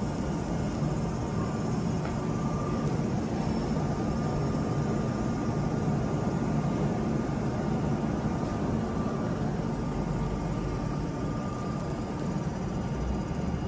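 Steady hum of a stationary Meitetsu 1000 series electric train: its roof air-conditioners and auxiliary equipment are running, with a faint high steady whine over the hum.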